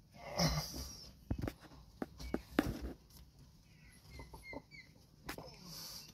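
Aseel rooster moving about on a floor of loose stones and gravel: a scatter of sharp clicks and scuffs from its feet, mostly in the first half. A few faint, short, high chirps come about two-thirds of the way in.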